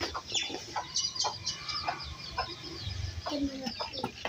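Birds chirping and calling: many short, quick chirps, several falling in pitch, with a couple of lower calls near the end.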